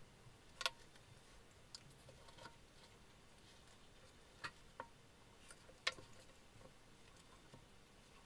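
Small metal parts and a hand tool being handled, giving about six light, sharp clicks and taps against a near-silent background. The two loudest come about half a second in and about six seconds in.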